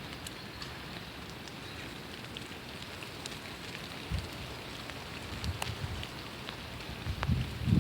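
Steady rain falling on a surface, with scattered louder drips and a few short low thumps, the strongest near the end.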